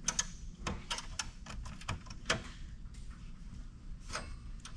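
Irregular clicks and clacks of metal and plastic parts being handled inside an old Dell OptiPlex desktop's steel chassis, as a board is pushed and worked to slide it free of its pins. A few louder knocks come about a second in, past the halfway point and near the end.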